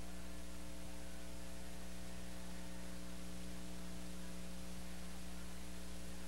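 Steady electrical mains hum with hiss on the soundtrack of an old VHS tape copy, with no music or voice.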